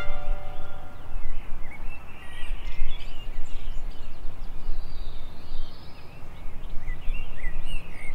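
Several small birds chirping and singing in quick, scattered notes over a steady outdoor background noise.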